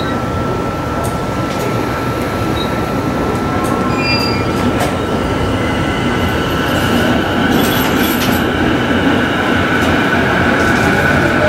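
EF64 electric locomotive hauling a rake of 209 series commuter cars, running by with loud, steady rail noise and a constant high whine. Higher squealing tones join about halfway through.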